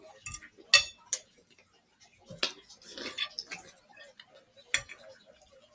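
Metal forks tapping and scraping on dinner plates: a handful of sharp clicks, the loudest about a second in.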